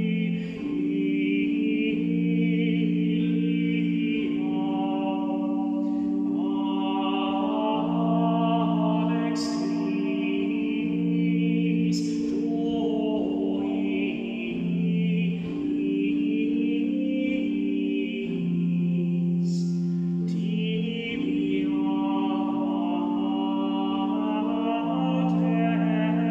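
Unaccompanied Gregorian chant, a Lenten tract sung in Latin: long held notes that move stepwise in pitch in slow melismas, broken now and then by short hissing 's' consonants.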